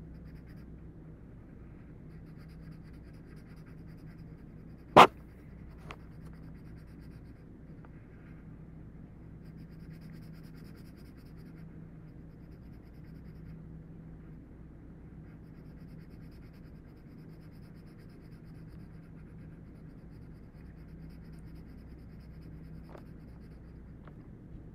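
Pencil scratching steadily on paper, pressed down hard to shade areas solid dark. About five seconds in, a single sharp click rings out, much louder than the scratching, with a fainter one about a second later.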